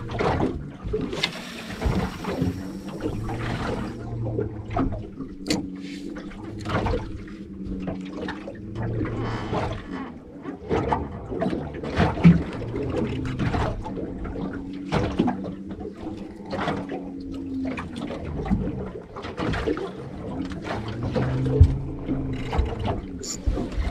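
Water slapping and splashing against a small boat's hull in irregular strokes, over steady low tones of background music.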